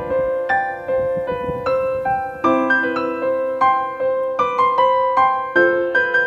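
Gentle background piano music: a steady run of single notes, a few per second, over one held note.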